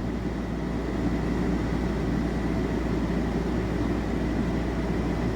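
Coleman Mach rooftop RV air conditioner running, a steady drone of fan and compressor with a faint high tone above it. The compressor has been brought up through a newly fitted soft start.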